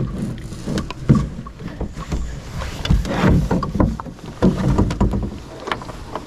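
Irregular knocks and thumps on a canoe hull, with rustling and low rumble in between.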